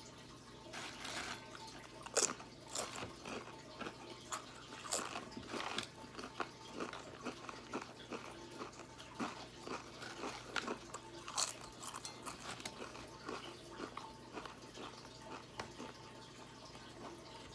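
A person biting and chewing crisp tortilla chips quickly, mouthful after mouthful: irregular crunches starting about a second in, the loudest bites standing out now and then.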